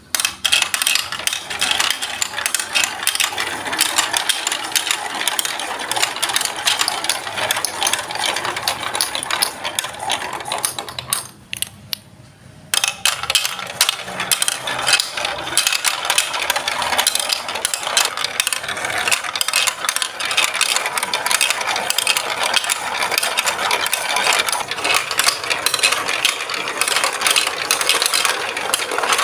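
Plastic balls rolling and rattling down a plastic Duplo-style block marble run through chutes, funnels and spiral bowls: a continuous clatter of many small knocks. It drops to a brief lull about eleven seconds in, then picks up again.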